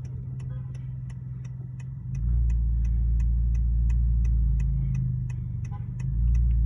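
Inside a 2019 Honda Accord 1.5T at a standstill: the engine hums steadily, with a regular light ticking about three times a second. A deep low rumble swells about two seconds in, eases, and comes back near the end.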